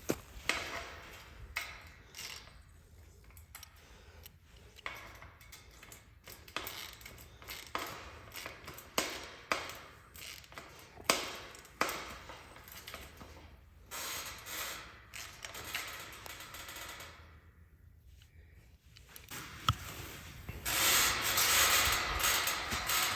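Irregular metal clinks and knocks, roughly one every second, from gate-hanging hardware being handled and fitted. About three seconds before the end a steady rushing noise comes in.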